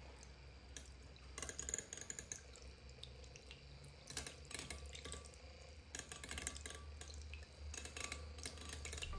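Wire whisk of a homemade electric hand mixer beating a raw egg in a ceramic bowl. It gives bursts of wet splashing and quick ticks of the wires against the bowl, four times, over a low steady hum.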